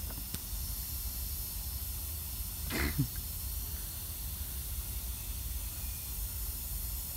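Large drum shop fan running: a steady hiss of moving air over a low hum, with one brief sound about three seconds in.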